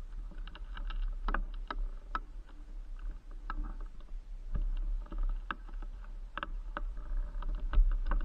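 Mountain bike riding over a rough dirt track: a steady low rumble with irregular clicks and rattles from the bike jolting over the ground.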